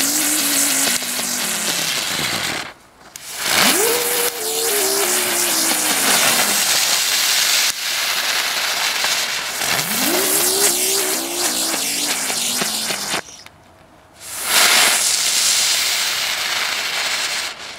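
Nico ground bees, small ground fireworks, burning one after another with a loud fizzing hiss. Three of them open with a tone that rises briefly and then slides down in pitch, and there are short breaks between them.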